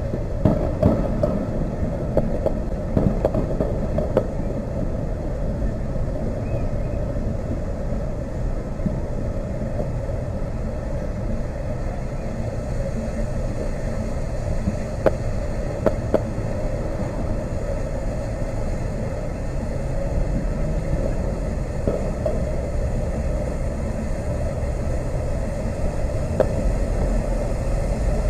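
Distant fireworks going off, heard as scattered sharp pops and bangs over a steady low rumble, the two clearest about a second apart near the middle.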